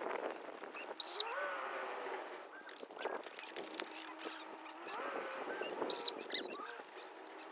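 Farm animal calls: two drawn-out calls that rise and then fall, about a second in and again about five seconds in, with short high bird chirps scattered between.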